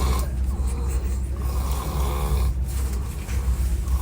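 A person snoring very loudly, about three long snores in quick succession, over the steady low rumble of a moving train.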